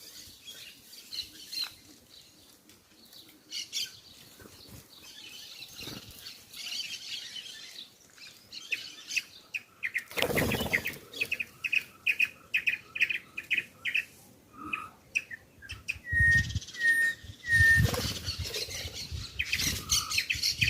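Wild birds at a feeding spot: wing flaps, a run of quick repeated chirps around the middle, then three short whistled notes, among other calls.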